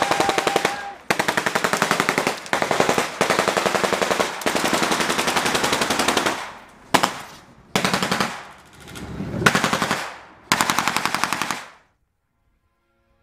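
Automatic gunfire: a machine gun firing a string of long, rapid bursts with short gaps between them, cutting off into silence about twelve seconds in.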